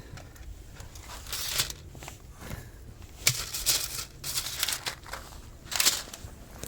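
Plastic packaging crinkling and rustling in several short separate bursts, as when a food bag or pouch is handled.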